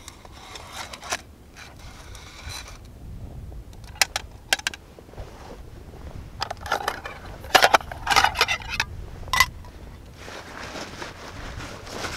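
Hard-anodised aluminium Trangia storm-cooker pot scraped and clinked into place on the stove's windshield, followed by scattered sharp clicks and then a busier run of scraping, clinking and crunching handling noises from about six to nine seconds in.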